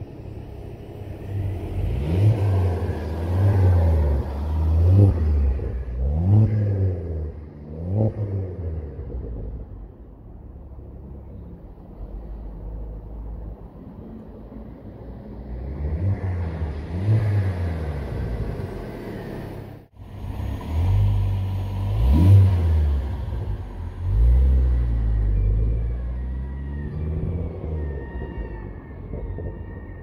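Ford Focus ST225's turbocharged five-cylinder engine with an aftermarket exhaust, revved in a series of quick blips that rise and fall in pitch. Between bursts it settles to a lower, steadier run.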